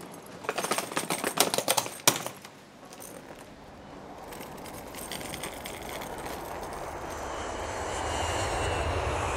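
A burst of rattling and clattering lasting about two seconds, like bags and gear being handled. Then a vehicle's rumble builds steadily louder.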